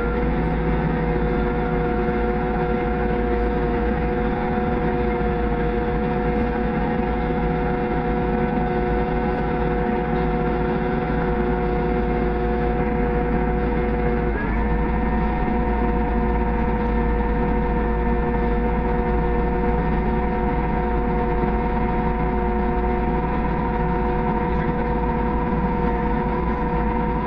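Farm tractor running steadily under a constant engine drone with several steady whining tones; about halfway through a brief blip, after which a higher whine joins in.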